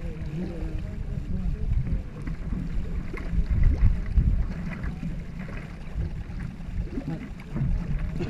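Paddles of a two-man racing canoe stroking through lake water, with blade splashes and water washing past the hull, over a steady low wind rumble on the microphone.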